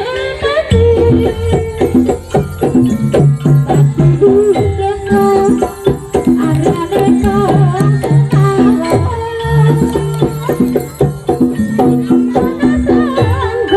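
Loud live jaranan (kuda kepang) music: a traditional Javanese folk ensemble with dense, regular percussion strokes under held tones and a melody line that bends in pitch.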